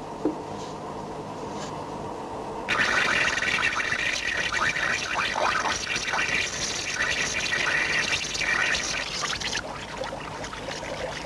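Seawater rushing into a submarine's escape trunk as it is flooded: a low hum, then a loud steady rush of water that starts suddenly about three seconds in and eases off to a lower rush near the end.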